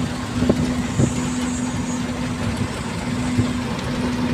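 Empty truck driving on a smooth highway, heard from inside the cab: a steady engine hum over road noise, with a few light knocks.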